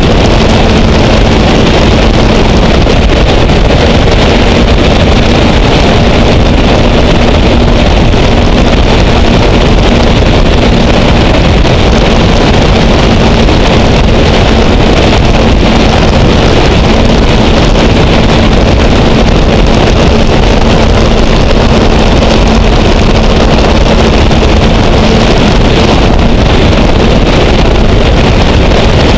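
Gas-turbine race boat (Caterpillar turbine, Arneson drive) running steadily underway, loud, with a thin high whine above the rush. Wind buffets the microphone.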